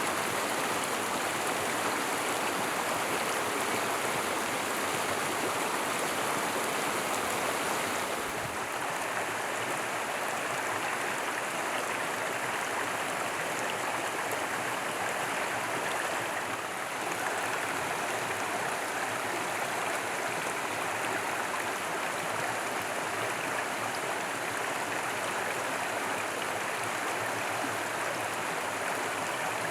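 Monsoon-fed stream flowing, a steady dense noise of running water with no letup.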